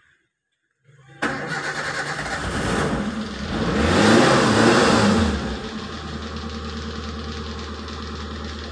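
Daihatsu Espass engine started with the key: about a second in the starter cranks and the engine catches at once, revs up and falls back, then settles into a steady idle.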